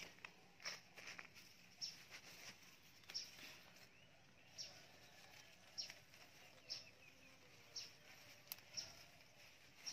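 Faint outdoor ambience with a bird's short high chirps repeating about once a second.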